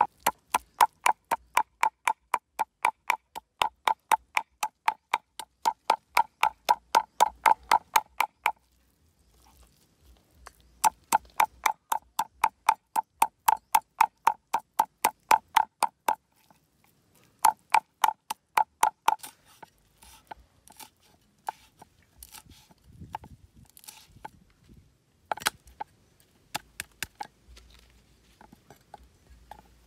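Steel cleaver chopping on a wooden chopping board, mincing meat in rapid, regular strokes of about four a second, each a ringing knock. The chopping stops about 8.5 seconds in, resumes twice, and then turns to softer, scattered chops near the end.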